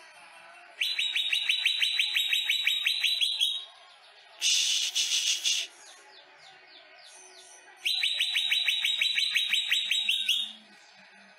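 Caged cucak ijo (green leafbird) singing two long runs of rapid, evenly repeated notes, about eight a second, with a short, harsher, higher burst between them.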